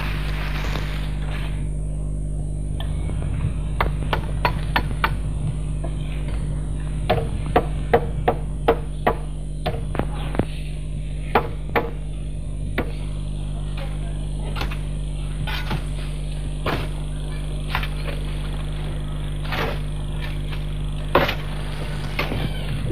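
Bricklayers knocking bricks into place with a hammer and trowels: irregular sharp knocks and clinks, some in quick runs, over a steady low hum.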